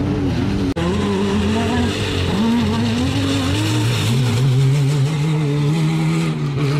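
Off-road race buggy's engine running under throttle, its pitch wavering up and down and climbing midway, then holding high. A brief dropout comes under a second in.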